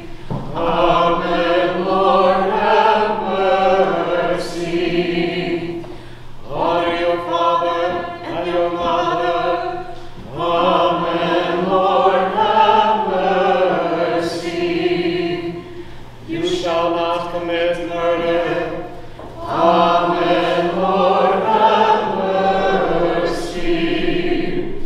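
Church choir singing in phrases of a few seconds each, with short breaks between them.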